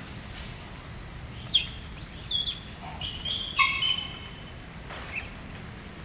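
Bird chirps: two quick high calls that sweep down in pitch in the first half, then a short burst of pitched calls, over a steady low rumble.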